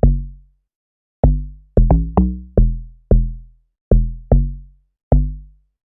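Amapiano log drum pattern played on its own: about nine short, pitched bass hits at shifting pitches, each sharp at the start and dying away within half a second.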